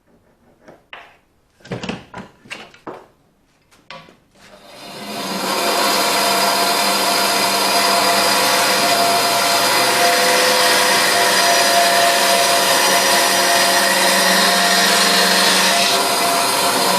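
A few knocks and clatters of wood and tools being handled, then an electric workshop machine switches on about four seconds in, runs up to speed and keeps running at a steady pitch.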